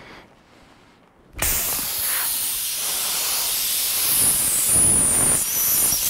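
Air hissing hard out of a punctured truck tire through the open, reamed plug hole, starting suddenly about a second and a half in, with a high whistle in it. The plug insertion tool has come out with the plug still stuck on its needle, so the hole is unsealed.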